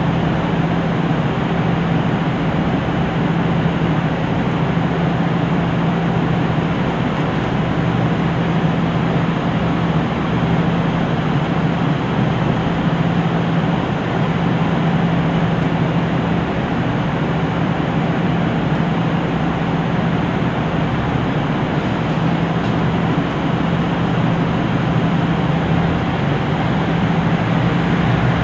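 KiHa 75 diesel railcar's Cummins diesel engine idling with a steady, unchanging hum while the train stands at a platform, heard from inside the car.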